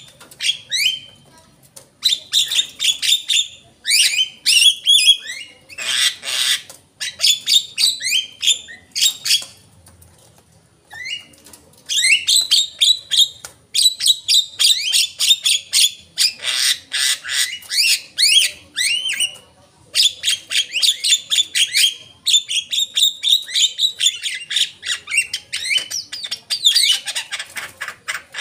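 Javan myna singing in bursts of rapid chattering, whistles and trills, each phrase one to two seconds long with short pauses between, and a longer pause about ten seconds in.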